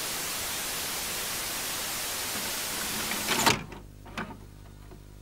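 Steady TV static hiss that cuts off with a clunk as a VHS cassette is loaded into a VCR, followed by the machine's low hum and a few faint mechanical clicks.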